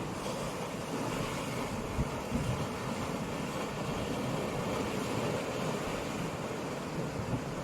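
Storm surf washing steadily against a rocky shore, with wind buffeting the microphone.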